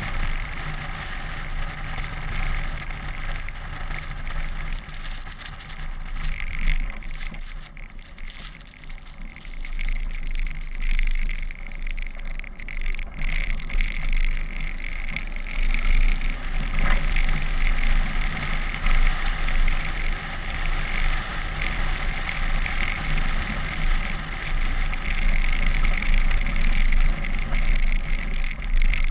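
SUV driving through snow, heard from a camera mounted on the outside of the car: steady wind and tyre rush with the engine's hum underneath. The sound dips briefly about eight seconds in and runs louder through the second half.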